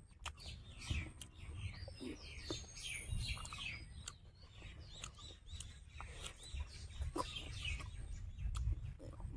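Birds chirping: a quick run of short, falling chirps that carries on through most of the stretch, with scattered sharp clicks and a low rumble underneath.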